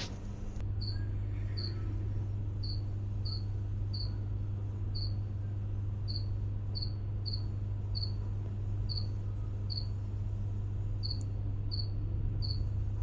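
Short high-pitched chirps, about one or two a second at uneven intervals, over a steady low hum.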